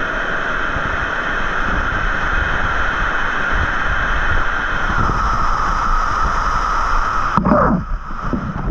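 Waterfall water rushing in a loud, steady roar, with wind on the microphone. The sound changes abruptly with a click near the end.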